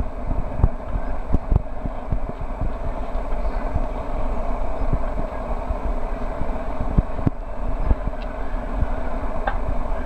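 Steady rushing outdoor background noise with many irregular low thumps.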